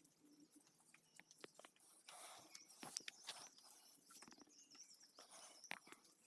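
Faint soft knocks and scuffs, a second or so apart, of sun-drying adobe bricks being turned over by hand on the ground.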